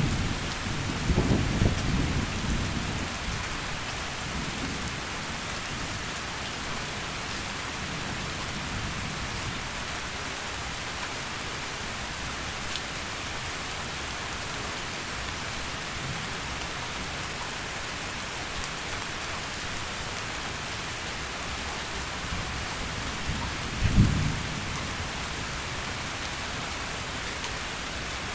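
Heavy rain falling steadily. A rumble of thunder dies away in the first few seconds, and a short, loud thunderclap comes near the end.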